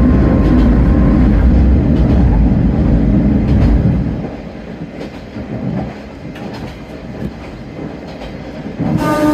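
Diesel railcar running along the track: the engine drones loudly under power, then about four seconds in it drops back as the railcar coasts, leaving a quieter rumble with wheel clicks over the rail joints. A brief tone and a rise in level come just at the end.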